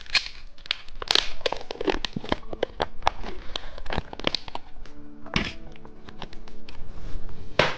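Background music under a run of small, irregular clicks, taps and crinkles from handling a plastic novelty candy kit and its wrappers.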